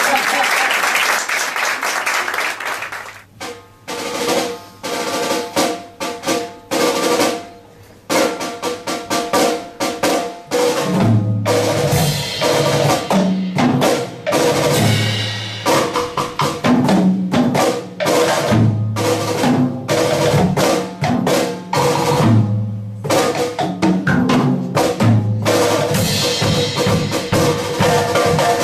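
Live percussion ensemble of drum kit, marimba and vibraphone playing. After a noisy wash at the start come sharp separate strokes with pauses. About eleven seconds in it settles into a steady groove, with low mallet notes repeating under the drums.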